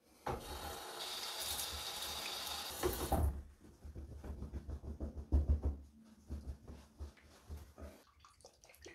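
Tap water running into a sink for about three seconds as the face is rinsed after shaving, then a towel rubbing and patting the face in a run of soft, uneven rustles.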